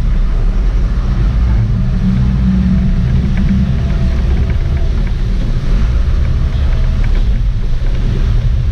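Sport-fishing boat's engines running hard, a steady low rumble, with water churning and splashing around the stern as the boat backs down on a hooked marlin.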